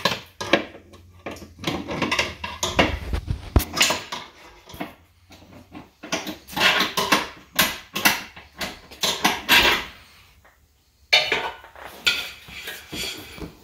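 Pry bar clinking and scraping against a steel motor mount bolt and bracket as the bolt is levered out of the mount: a run of sharp irregular metal clanks, with a short pause about ten seconds in.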